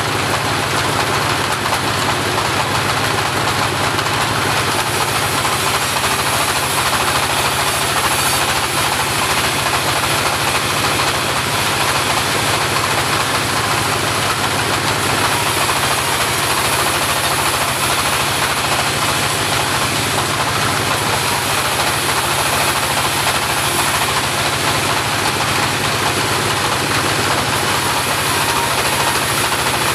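Homemade portable bandsaw running with a steady, unbroken mechanical noise.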